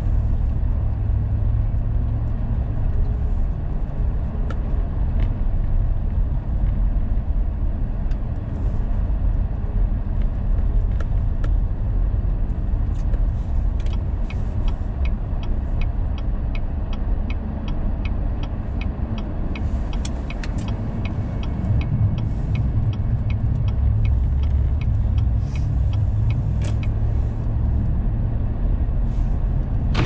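Car engine and tyre rumble heard from inside the cabin while driving slowly on snowy streets. For more than ten seconds from about halfway in, a rapid, regular ticking plays over the rumble, the turn-signal indicator clicking as the car nears a corner.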